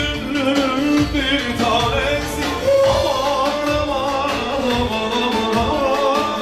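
Live band playing Balkan Roma dance music for a horo line dance: a wavering lead melody over a steady drum beat.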